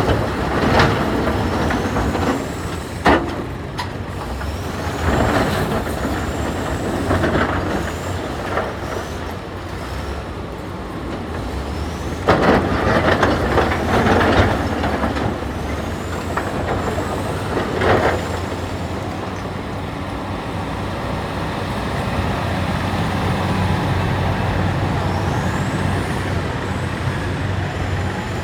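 A heavy diesel earthmoving machine running steadily. Sharp clanks come about three seconds in, in a cluster near the middle, and again a little later. Short high whines rise and fall several times over the engine.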